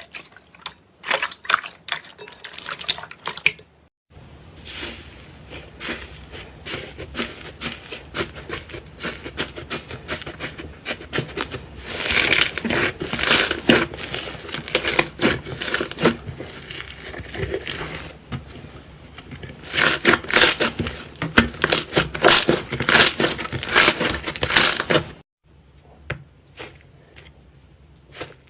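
Slime being squished and pressed by hand, a dense run of rapid wet clicks, pops and crackles. It grows louder in two spells, one in the middle and one later, then stops a few seconds before the end.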